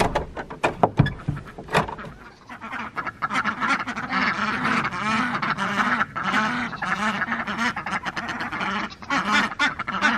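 A wooden door knocks shut with its metal latch, a few sharp knocks in the first two seconds. Then a small flock of domestic ducks quacks over and over, loud and continuous.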